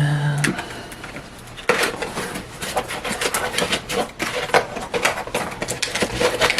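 A microphone's cardboard box and its packaging being opened by hand: a dense run of crinkles, scrapes and clicks begins about two seconds in. A brief held tone cuts off about half a second in.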